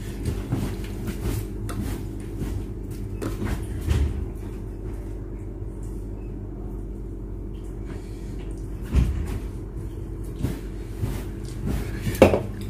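Steady low hum under scattered knocks and clatter of things being handled at a table. A sharper knock comes near the end as a drink can is set down on the tabletop.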